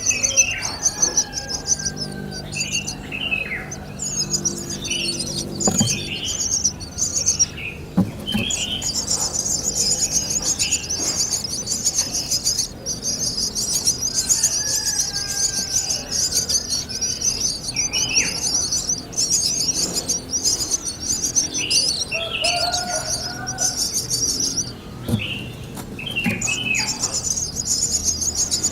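Birds chirping with short repeated calls over a continuous, high-pitched, rapidly pulsing trill that breaks off briefly a few times.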